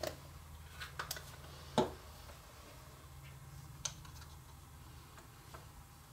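Scattered light clicks and taps of small objects handled on a wooden workbench: a plastic glue bottle, rare earth magnets and ABS vise jaws, with the loudest knock a little under two seconds in. A low steady hum runs underneath.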